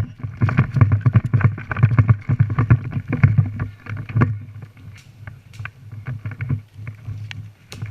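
A player running close to the microphone: quick footsteps with gear and brush rustling. About four seconds in this slows to scattered steps and light clicks.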